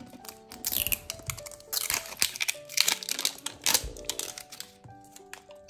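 Plastic toy packaging crinkling and rustling in irregular bursts as it is worked open by hand, over background music with held notes.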